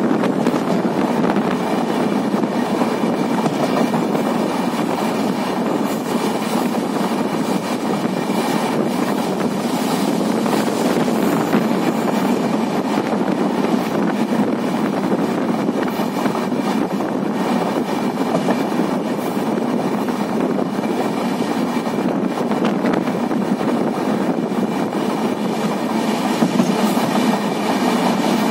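Moving passenger train heard from a coach window: a steady rumble of steel wheels running on the rails, with occasional faint clicks.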